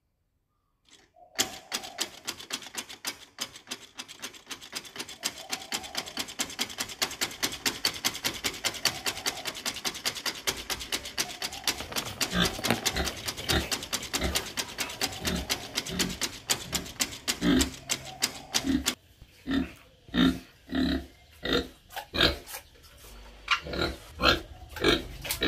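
Pig grunting: a long run of rapid grunts and snorts, then slower, separate grunts about twice a second near the end.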